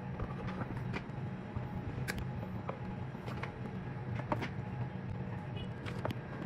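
Faint clicks and light handling noises of hands working with electrical wires and small tools, over a steady low background hum.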